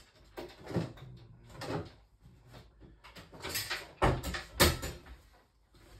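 A lid being fitted over a bread tin: a series of separate knocks and clunks, the loudest two about four seconds in.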